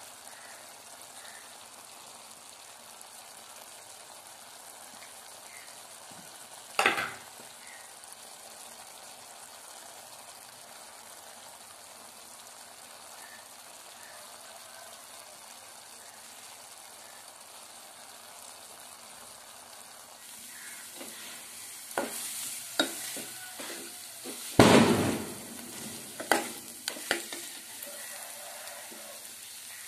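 Mutton curry sizzling steadily in a metal pot, with one sharp clank about seven seconds in. In the last third a steel spoon stirs and scrapes the masala, knocking against the pot several times.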